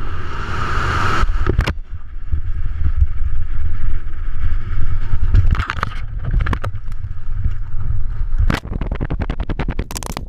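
Rushing wind buffeting the microphone as a rope-swing jumper drops off a cliff edge, a heavy steady rumble. Near the end comes a rapid run of sharp knocks and clattering.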